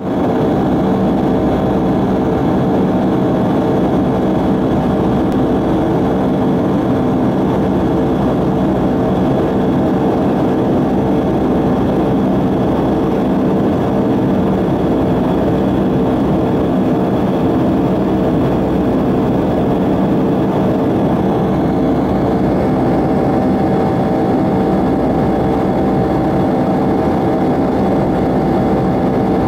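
Steady jet airliner cabin noise in the climb after takeoff: engine drone and rushing airflow, with a few constant hum tones running through it.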